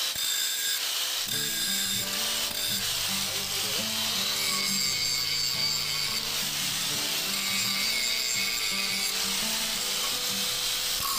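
Doliz BA730 angle grinder running with a grinding-stone disc, grinding down the head of a nail set in a wooden block, with steady grinding hiss; background music plays alongside.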